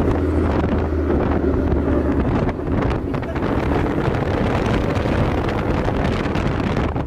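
Ford Mustang GT's 5.0 V8 cruising with a steady low drone, mixed with wind buffeting the microphone and road noise; the drone drops away about two and a half seconds in, leaving rough wind and road noise.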